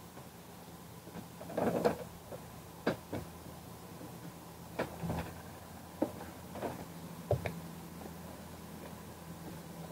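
Scattered knocks and clicks, eight or so at irregular intervals, over a faint steady low hum.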